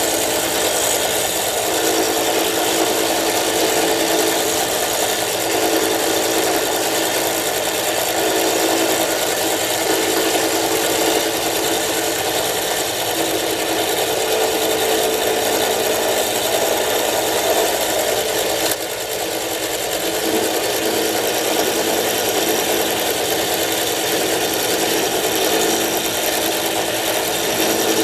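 Milling machine running steadily with a steady hum, its cutter working the lock relief into a frame-lock knife's locking bar; the sound dips briefly about two thirds of the way through.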